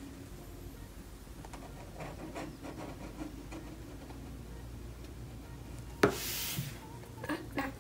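Permanent marker tip drawing long strokes on paper, a faint scratching rub. About six seconds in comes a sudden louder rush of noise lasting about half a second, followed by a few light clicks.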